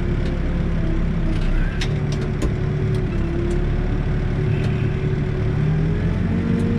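New Holland backhoe's diesel engine running under hydraulic load while the backhoe works, its pitch drifting and rising a little in the second half, with a few sharp light knocks about two seconds in.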